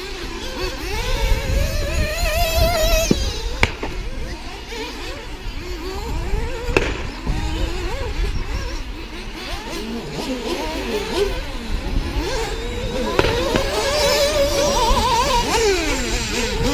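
Several radio-controlled model racing cars running round a track, their motors whining up and down in pitch as they accelerate and brake, several at once and overlapping. Low wind rumble on the microphone, with a couple of sharp clicks about 3.5 and 7 seconds in.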